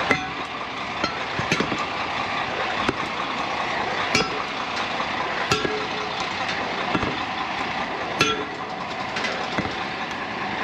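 An engine idling steadily under a series of sharp metallic clanks, about one every second and a half, each ringing briefly like struck steel.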